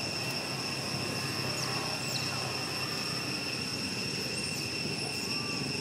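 Steady outdoor ambience: a constant high-pitched whine over a low continuous rumble, with a few brief chirps now and then.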